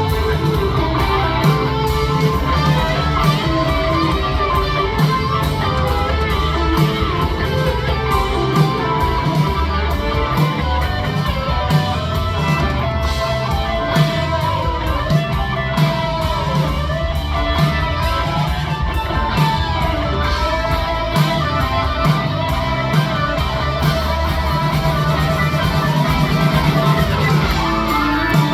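A live rock band playing an instrumental passage: guitars over bass and a steady drum beat, with a lead line that bends up and down in pitch around the middle.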